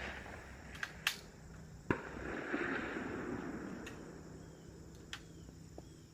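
The echo of a .22 Magnum rifle shot dies away, followed by a few sharp metallic clicks about a second in and a single click near the end, with a soft rustle in between.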